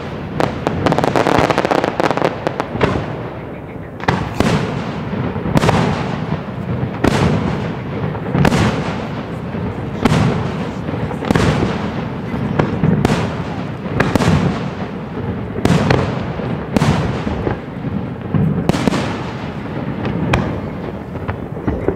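Large professional aerial fireworks display: shells bursting one after another, roughly one bang a second, with a dense fast crackle of many small reports in the first few seconds.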